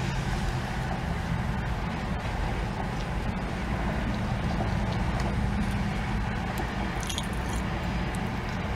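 Steady low hum of a car's running engine heard from inside the cabin, with quiet chewing and a few soft ticks about seven seconds in.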